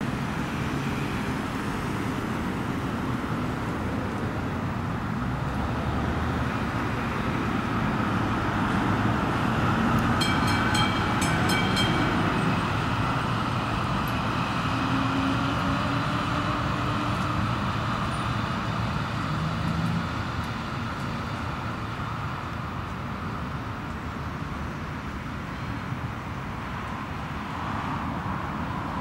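Steady multi-lane road traffic with a Melbourne B2-class tram rolling past, the noise swelling to its loudest around the middle. A brief rapid ringing of repeated strikes comes about ten seconds in.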